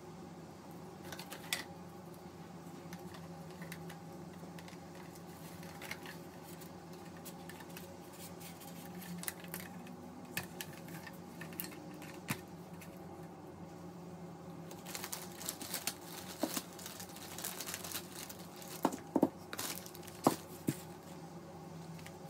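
Light clicks, taps and rustles of gloved hands handling plastic cups and craft tools on a table, over a steady low hum. The handling gets busier in the second half, with a few sharper knocks near the end.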